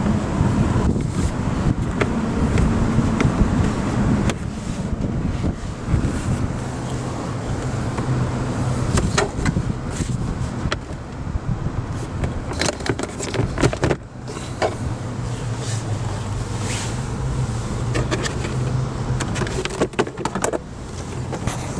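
Steady low hum of a car running, with scattered sharp clicks and knocks throughout.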